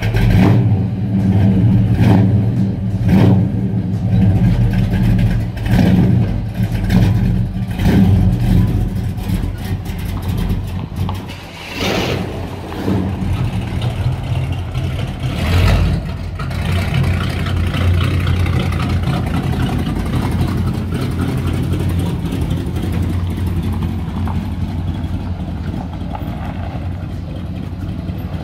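1970 Chevrolet Nova's V8 running just after start-up, its throttle blipped in repeated short revs over the first half, then settling into a steady idle.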